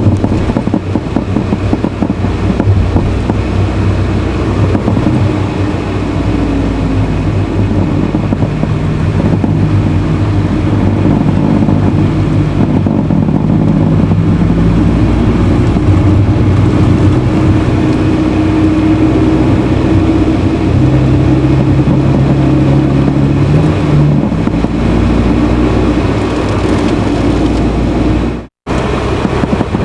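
A Honda Fit (GE8) being driven: steady engine and road noise with several humming tones that slowly shift in pitch as speed changes, recorded to catch an intermittent abnormal noise the car makes. The sound cuts out abruptly for a moment near the end.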